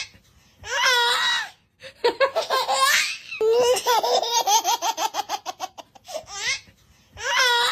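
High-pitched laughter in several separate spells with short silent gaps between them, one long run of quick repeated laugh pulses in the middle.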